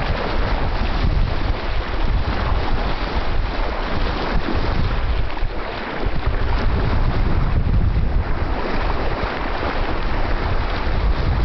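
Wind buffeting the microphone over the steady rush of water along a sailing yacht's hull under way.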